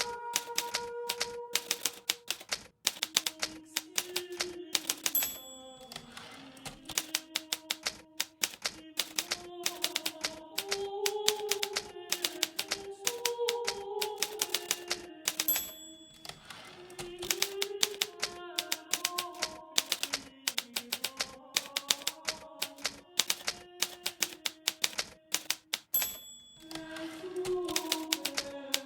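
Hermes Baby manual typewriter typing in quick runs of keystrokes, with short pauses about every ten seconds. A soft melody plays underneath.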